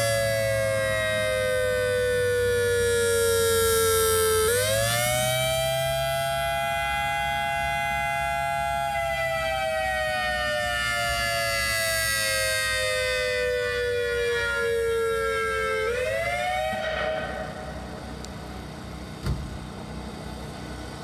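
Whelen WS-3000 electronic outdoor warning siren sounding a wail. Its tone slides slowly down, sweeps quickly back up about four and a half seconds in, holds, then slides down again. After one last short rise near the end it winds off and fades, and a single click follows.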